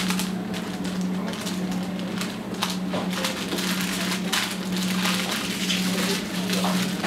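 Paper crinkling and rustling as a piece of cheese is wrapped by hand, with many irregular crackles, over a steady low hum.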